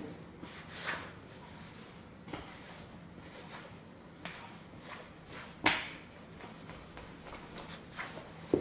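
Nike Air Force 1 sneakers stomping and treading on a plush stuffed toy dinosaur on a wooden floor: a scatter of irregular soft thuds and scuffs. The sharpest thud comes about two-thirds of the way through, with another just before the end.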